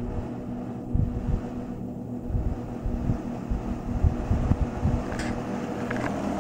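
GE F11W22 box fan running on low speed: a steady motor hum under the rush of its airflow, with uneven low gusts of air hitting the microphone.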